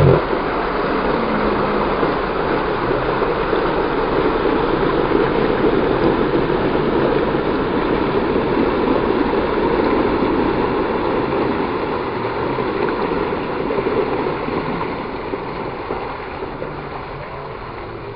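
Jeep Wrangler JK wading through a creek: its engine running and water churning around the tyres and body, blended with the rush of the stream. The sound fades gradually over the last few seconds as the Jeep moves away.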